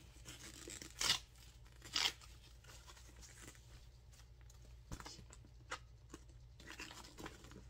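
Protective plastic wrap and tape being torn and peeled off a new handbag: two short, loud rips about one and two seconds in, then quieter crinkling and a few small ticks as the bag is handled.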